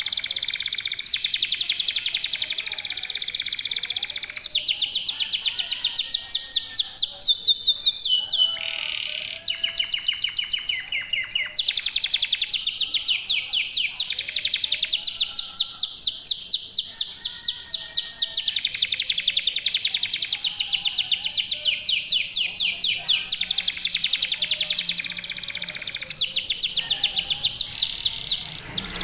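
Local canaries singing together in long, fast trills of high, rapidly repeated notes, the song overlapping almost without pause.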